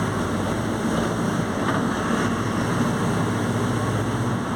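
Mercedes-Benz OF-1721 BlueTec 5 bus diesel engine running steadily under way.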